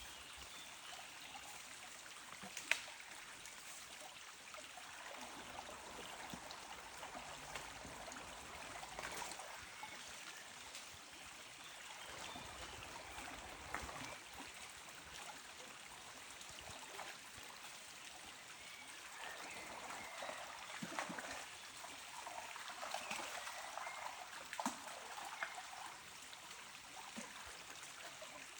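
Faint trickling, flowing water, steady with irregular small splashes and clicks; one sharp click about three seconds in.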